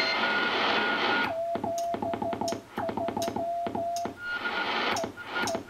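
Morse code sent on a key through a homebrew single-tube 6AQ5 QRP CW transmitter, heard as a mid-pitched tone keyed in dots and dashes. Shortwave band hiss from the National NC-183D receiver drops out while he keys and comes back when he stops, with one more short tone near the end.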